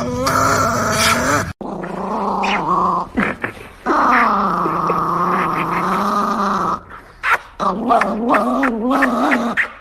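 Small white dog growling in long, drawn-out vocal stretches that waver up and down in pitch, with teeth bared, the longest lasting about three seconds in the middle.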